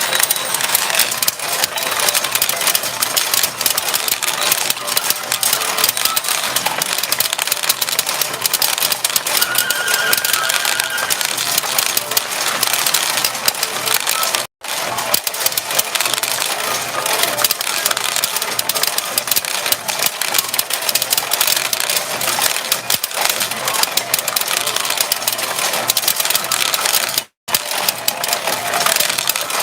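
Retro pachinko machine in play: a dense, steady clatter of steel balls rattling through the pins and trays, with occasional short electronic beeps from the machine. The sound is broken by two very brief gaps, about halfway through and near the end.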